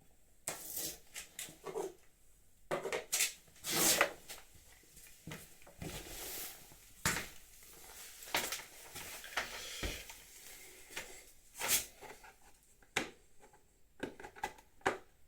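Irregular clicks, knocks and rubbing as motorcycle fairing and headlight parts are handled and fitted back together by hand.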